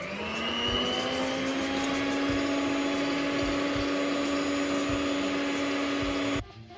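Electric hand mixer starting up, its motor whine rising in pitch for about a second and then running steady as the beaters whip dalgona coffee in a bowl. It switches off suddenly near the end.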